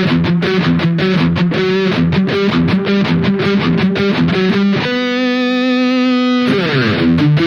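Harley Benton ST80 FR HH electric guitar played through high-gain distortion: a fast picked riff, then one note held for over a second about five seconds in. The note falls sharply in pitch before the riff picks up again.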